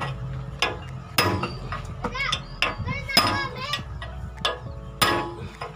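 Hammer blows on a steel drift rod, seating a new bearing in the hub of a hollow-block concrete mixer: sharp metallic strikes with a short ring, about a second or two apart. Children's voices can be heard in the background midway through.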